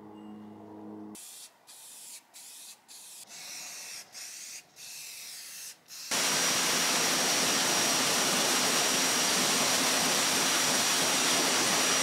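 An aerosol spray paint can hissing in a run of short bursts with brief pauses. About six seconds in a pressure washer's water jet starts and runs steadily and much louder, with a thin steady high whine.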